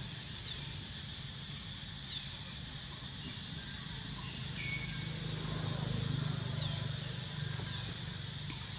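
Outdoor ambience of a forest: a steady high insect drone, a few short falling high chirps, and a low steady hum that swells for a moment in the middle.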